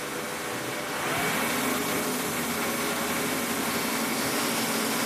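Benchtop metal lathe running steadily as it turns a resin pen blank, a motor hum with a faint whine, growing louder about a second in.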